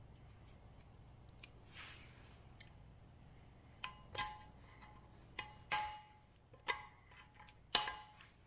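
Steel C-clip and snap-ring pliers clinking against a ball joint in a steering knuckle as the clip is worked into its groove: about six sharp metallic clinks, each ringing briefly, in the second half.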